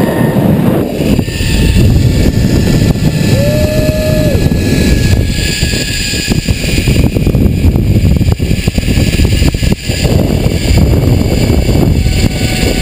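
Loud wind rushing and buffeting over a hand-held GoPro's microphone as the rider speeds down a long, fast zipline, with a brief held tone about three and a half seconds in.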